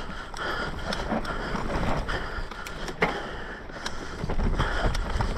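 Mountain bike rolling fast down a dry, dusty dirt trail strewn with pine needles: steady tyre noise over the ground, with the bike rattling and sharp knocks from bumps, clearest about three seconds in. Wind buffets the microphone, growing stronger near the end.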